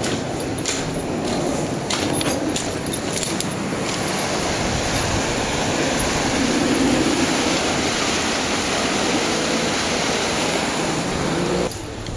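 Steady rush of fast-flowing floodwater through a stone bridge arch, dropping away sharply near the end. Footsteps on the muddy path in the first few seconds.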